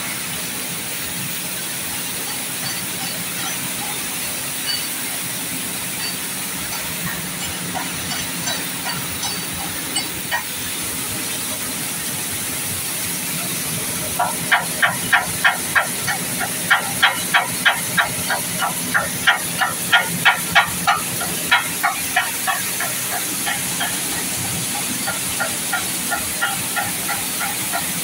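Flour-mill wheat-washing machinery running with a steady rushing hiss. About halfway through, a rapid series of short, high-pitched squeaks comes in, about three a second, lasting roughly ten seconds, and fainter ones follow near the end.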